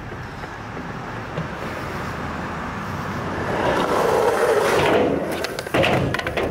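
Skateboard wheels rolling across a skatepark surface, getting louder as the rider approaches, then a sharp clack of the board near the end.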